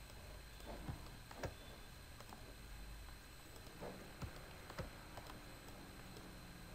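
A handful of faint clicks from a computer mouse and keyboard, the sharpest about a second in and around four to five seconds in, over a low steady hum.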